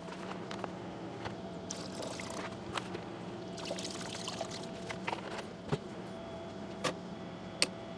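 Cleaning liquid poured into the stainless steel tank of an ultrasonic cleaner, splashing and trickling for a few seconds. Then come a few sharp clicks and knocks, over a faint steady hum.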